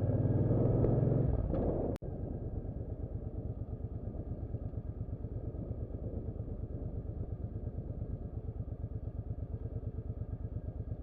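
Suzuki Boulevard motorcycle engine running with an even, rapid pulsing beat, starting after a sudden cut about two seconds in; before that, the tail end of background music.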